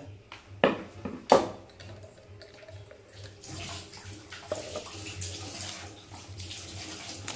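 Two sharp knocks about a second in as a metal pot is set down, then a steady wet swishing and squelching of raw chicken being worked by hand in its marinade.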